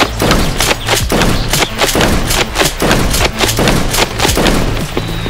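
A toy foam-dart blaster fires a rapid string of sharp, evenly spaced shots, about four a second.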